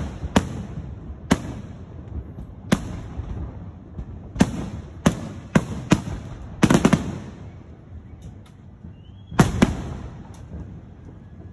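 Aerial firework shells bursting overhead in a professional display: a string of sharp bangs, several in quick succession around the middle, each trailing off in a low echo. A quieter lull is followed by one last loud burst near the end.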